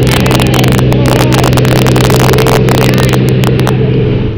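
Small plane's engine and propeller droning steadily, loud, heard from inside the cabin, with dense crackling from wind and handling on the camera microphone.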